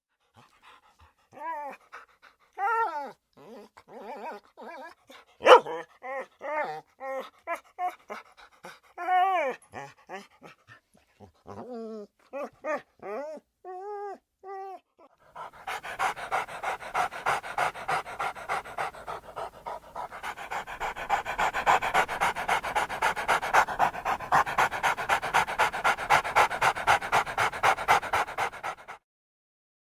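A dog whining and whimpering in short, separate calls that bend in pitch. About halfway through it switches to fast, rhythmic panting at about three to four breaths a second, which grows louder for a while and then stops.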